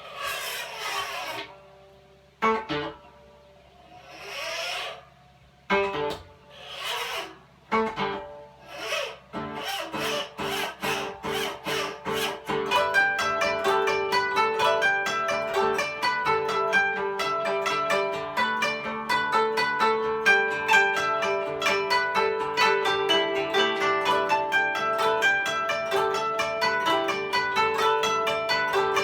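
Solo koto imitating a steam locomotive. A series of swelling, rasping sweeps along the strings, with pauses between them, gives way to plucked notes that speed up, settling into a fast, even run of notes from just under halfway through, like a train pulling away.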